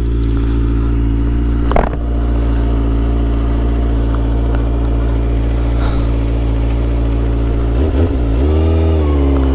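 Kawasaki Ninja ZX-25R's inline-four engine with a Yoshimura R-77 exhaust running at steady revs, heard from the bike. Near the end the revs dip and then climb again.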